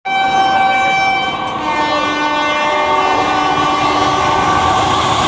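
WAP-4 electric locomotive sounding its horn continuously as it approaches at speed, several tones at once that shift in pitch a few times, over the rumble of the oncoming train.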